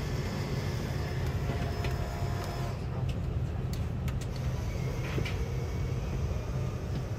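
Steady low hum of an Airbus A330 passenger cabin, with a few faint clicks around the middle as the seat-control buttons on the armrest are pressed.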